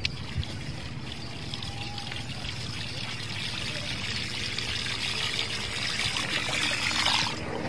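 Water trickling and splashing, growing louder over several seconds and then stopping suddenly near the end.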